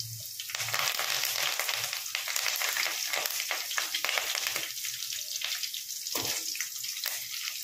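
Fresh curry leaves sizzling and crackling in hot oil in a steel kadai with chopped green chillies and cumin seeds, as the water in them boils off. The sizzle is strongest at first and eases somewhat after about four and a half seconds.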